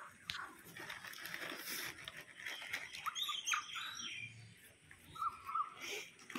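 Gray langurs feeding on concrete steps: soft rustling, crinkling and light scuffling, with a few short high chirps about three seconds in and a brief warbling call near the end.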